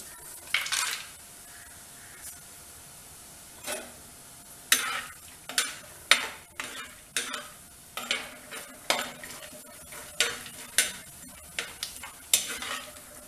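Cashews and peanuts frying in hot oil in a clay pot, with a burst of sizzling about half a second in as they go in. From about four seconds on, a metal spoon stirs them, its strokes against the pot coming about twice a second over a steady sizzle.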